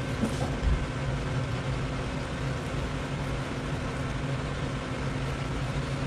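Steady low hum of kitchen machinery, several low tones held over an even background noise.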